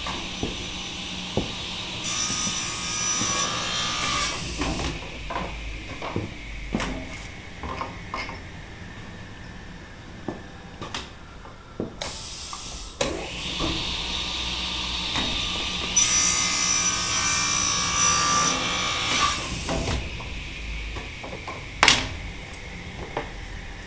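Vertical panel saw cutting through a wooden board in two passes, the first about 2 seconds in and a longer one from about 13 to 20 seconds, over a steady motor hum and small knocks. A sharp knock comes near the end.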